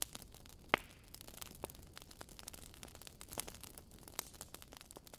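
Faint crackle and static: irregular clicks and pops over a low hiss.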